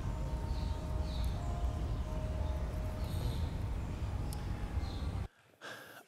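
Outdoor ambience: a steady low rumble with a few faint high chirps scattered through it. It cuts off suddenly a little past five seconds in.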